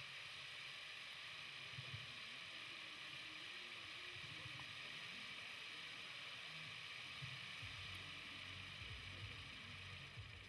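XF4001 stage wheel firework burning on its pole, its spark-throwing charges giving a steady, even hiss, with a few low rumbles underneath.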